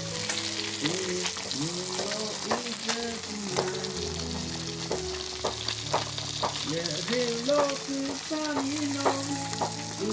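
Food frying in hot oil in a pan, a steady sizzle dotted with sharp crackles and spatters, under a quiet melodic background tune.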